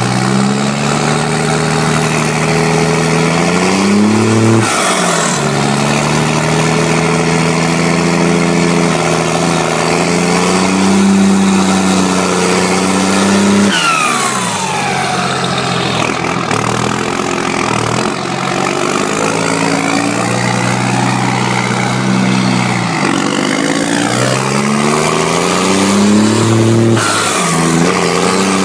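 Turbocharged tractor engine being revved up and down again and again. Its pitch climbs and drops several times, and the turbo's whistle rises and falls with it, falling sharply about halfway through as the revs come down.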